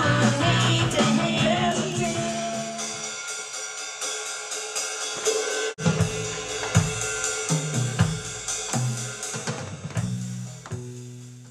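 Rock band playing, led by a drum kit with snare, kick drum and cymbals over held electric bass notes. The low bass notes drop out for a few seconds and come back after a brief break about six seconds in, and the music fades out at the end.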